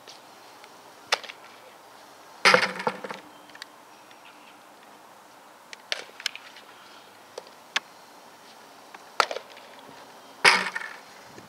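Softball smacking into a leather fielding glove as throws are caught at first base: two loud sharp smacks, about two and a half seconds in and near the end, with several fainter knocks in between.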